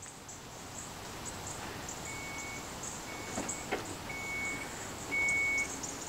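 Power liftgate of a 2014 Dodge Grand Caravan opening by key-fob remote: four short warning beeps at one pitch, about a second apart, the last the loudest. Two short clicks come between the second and third beeps as it works.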